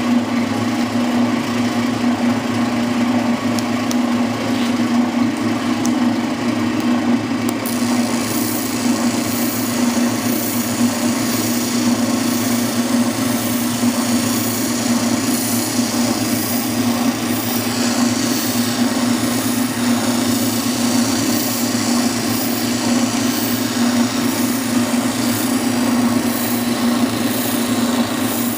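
Oscillating spindle sander running with a steady hum. About seven seconds in, a hiss joins it and continues as the panel edge is fed against the sanding drum and the sandpaper cuts away to the line.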